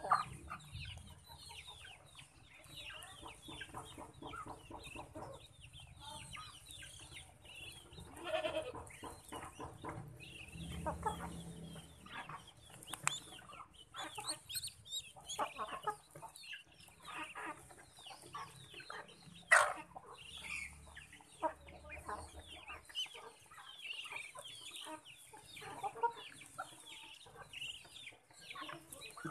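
Chickens and ducks feeding together, with frequent clucking and short calls. There is one sharp, loud call or knock about twenty seconds in.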